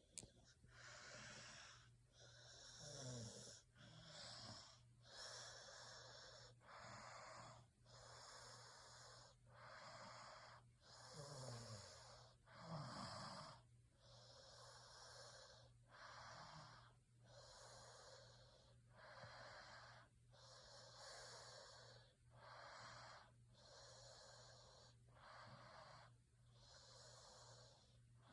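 Faint, steady sleep breathing of a snoring person: a noisy rush of air about every second and a half, with a few short sounds falling in pitch.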